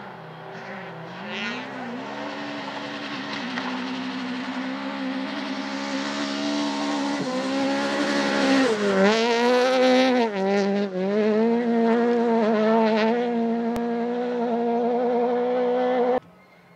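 Peugeot 208 rally car's engine, the revs climbing as the car comes closer. About halfway through the revs drop sharply a few times, then hold steady and high until the sound cuts off suddenly near the end.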